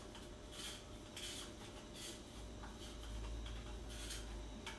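Handheld twist spiralizer shaving a carrot: short, scratchy scraping strokes about every half second as the carrot is twisted against the blade.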